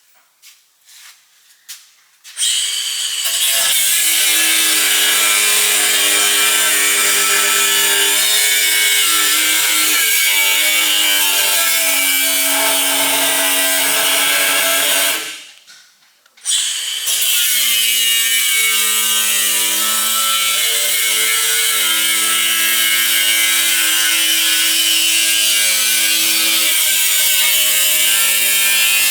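Power saw cutting through metal exhaust tubing for pie cuts: two long, steady cuts with a short pause between them.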